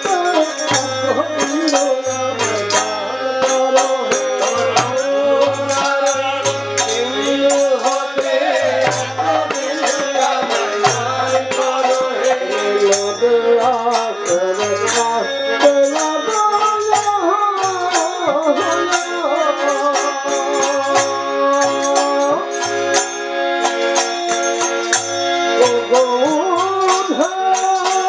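Live devotional song: a harmonium holds steady chords under a singing voice, with low strokes from a laced barrel drum and quick jingling percussion.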